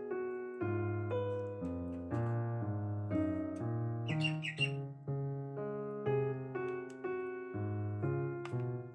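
Background music: an electric piano playing chords that change about every half second, with a brief run of high chirping notes about halfway through.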